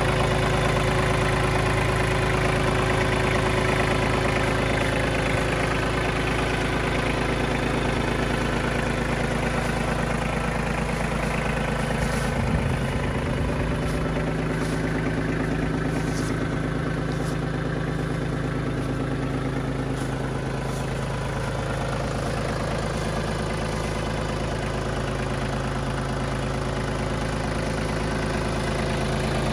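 Iseki TPC15 tracked tractor's three-cylinder diesel engine idling steadily, with a few light clicks around the middle.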